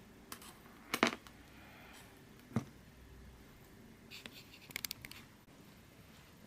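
Light clicks and knocks of 3D-printed plastic parts being handled and fitted together: a sharper knock about a second in, another a little later, and a quick run of small clicks past the middle.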